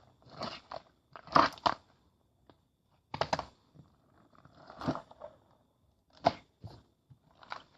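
Crunchy food being bitten and chewed close to the microphone, in separate crisp crunches at irregular intervals of roughly a second.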